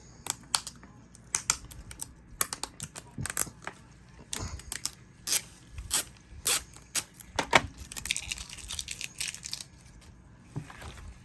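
A plastic DVD case being unsealed by hand: irregular crackles and clicks of plastic, with a short stretch of peeling or tearing about eight seconds in as the safety sticker comes off.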